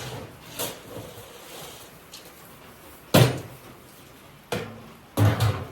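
A few knocks and bangs, the loudest a sharp bang about three seconds in, followed by more knocks near the end.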